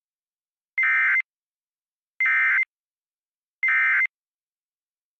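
Emergency Alert System end-of-message signal: three short, harsh bursts of SAME digital data, each under half a second, about a second apart, marking the end of the alert.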